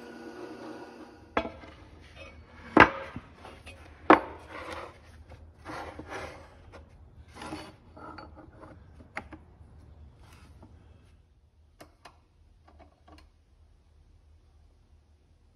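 A drill press motor running, which stops about a second in. Then handling on the drill press's iron table: a few sharp knocks, the loudest about three and four seconds in, with rubbing and scraping as a cast bronze fitting and a plywood board are moved about. Scattered light clicks follow and fade out.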